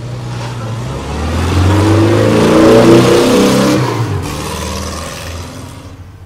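Car engine sound effect for a channel intro: an engine revving up in steps, growing louder to a peak about three seconds in, then fading away.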